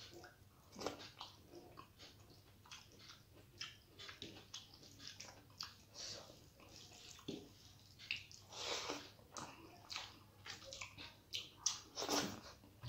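Close-up chewing and wet mouth sounds of a person eating rice and curry by hand: irregular smacks and clicks, with longer, louder mushy stretches about nine seconds in and again near the end.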